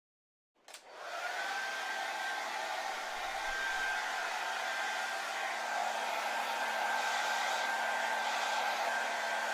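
Hair dryer starting with a click about half a second in, coming up to speed within a second, then running steadily: an even airy rush with a steady high whine and a faint low hum.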